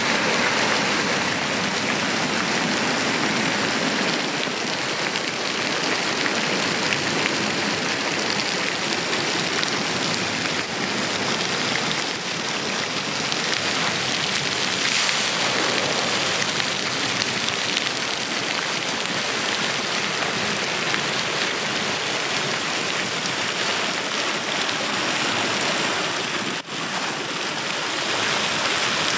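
Steady rain from a rainstorm falling on a swimming pool, an even hiss of drops with a momentary dropout near the end.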